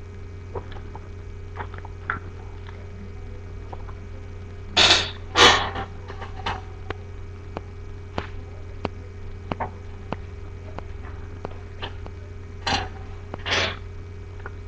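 Basset hound sniffing: two pairs of short, loud sniffs, about five seconds in and again near the end, with faint ticks and clicks between them over a steady low hum.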